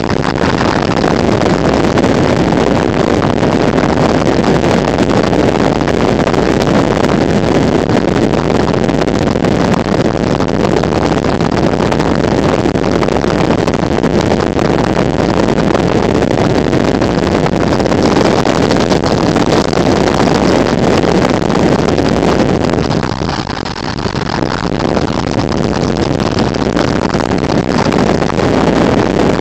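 Steady rushing road and wind noise from a moving car, dipping briefly about three-quarters of the way through.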